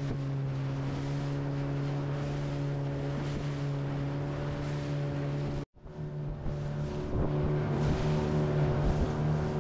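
An engine running steadily with a low, even hum over a rushing noise. It cuts off abruptly a little over halfway through and comes back as a similar but less even engine sound.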